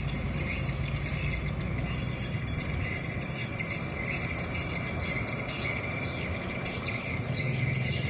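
Steady chorus of insects shrilling, over the low, steady rumble of a loaded truck's engine moving away down a dirt road.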